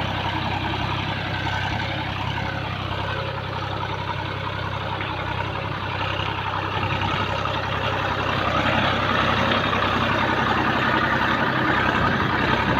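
Massey Ferguson tractor engine running steadily under way, getting somewhat louder about two-thirds of the way through.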